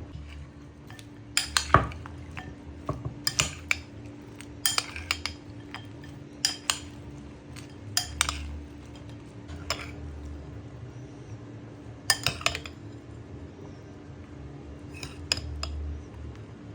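Metal utensils clinking and knocking against dishes in short clusters of sharp clicks every second or two, over a steady low hum.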